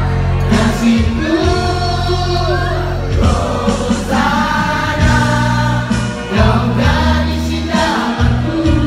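Live performance of a Malaysian rock ballad: a male singer's amplified vocal through the PA, with held, sliding notes over steady instrumental backing.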